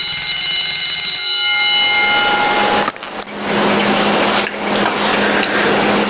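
Wind-up mechanical alarm bell ringing: a metallic ring with several overtones that fades out over the first couple of seconds. From about three seconds in, the bell is running under water and makes a rough, rattling buzz with a low hum and churning water.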